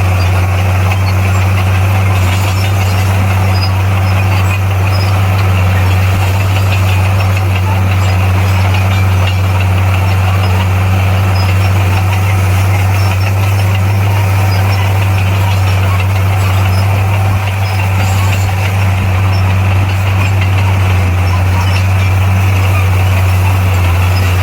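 Bulldozer's diesel engine running steadily, a deep, even drone that holds without change.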